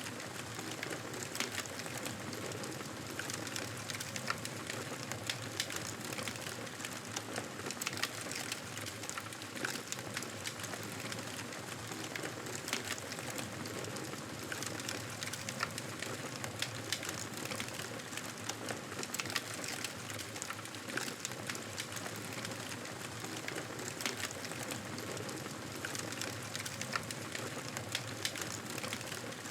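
Wood fire crackling in a fireplace: a steady hiss dotted with many small, irregular pops and crackles.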